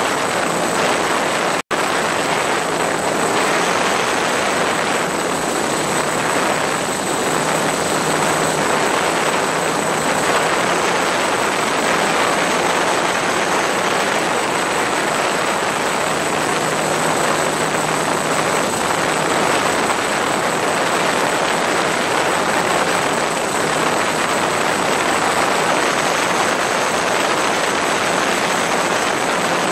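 Homemade drone's motors and propellers whirring steadily, heard up close from the camera on board, with a faint low hum under the whir. The sound cuts out for an instant about two seconds in.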